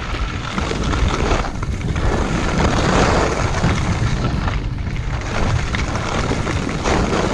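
Wind buffeting the microphone: a loud, continuous low rumble that swells and eases in gusts every second or two.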